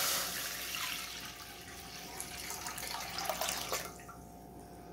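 Water poured from a glass jug into a metal kadhai, splashing onto the metal. The flow is loudest at first, then thins and fades away a little before the end.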